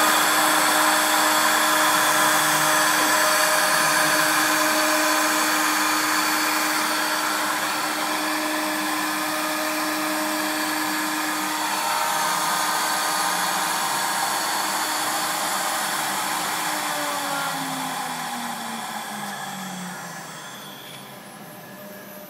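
Mini CNC router's spindle running and cutting into wood: a steady whine over cutting noise. Over the last few seconds the pitch slides down and the sound fades.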